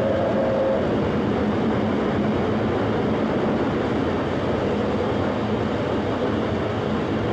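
Steam-hauled express train, the LNER A4 locomotive Silver Fox with its carriages, running at speed with a steady, dense noise of the train on the track. A brief steady tone sounds in the first second.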